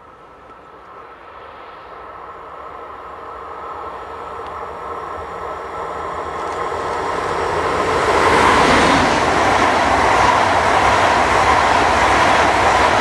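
ICE high-speed electric train approaching at speed and passing close by: the rumble and rush of wheels on rail grows steadily louder for about eight seconds, then stays loud as the coaches go past.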